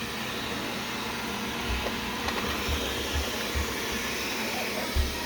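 Wyze robot vacuum running steadily, its motor and brushes making an even rushing noise, with a few soft low thumps.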